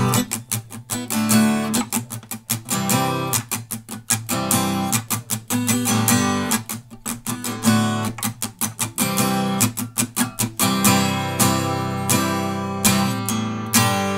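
Acoustic guitar strummed in a steady rhythm, closing on a last chord left to ring out near the end.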